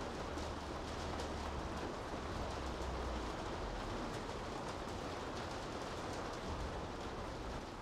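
Steady rain falling on city streets, with scattered drips ticking over the hiss and a low rumble underneath that swells and fades.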